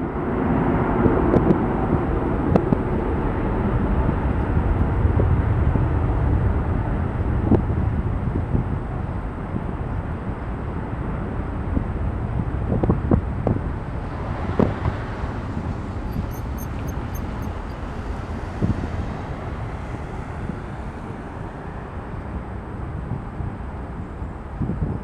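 Boeing 777 airliner's jet engines at takeoff power, a steady roar that slowly fades as the aircraft climbs away.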